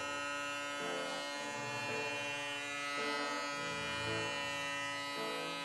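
Andis Profoil Lithium titanium foil shaver switched on, its rotary motor running with a steady, even buzz.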